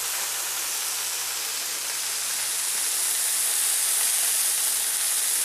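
Swordfish steaks sizzling on a ridged electric grill plate, the water the fish has released hissing off as steam. A steady sizzle that grows a little louder about halfway through.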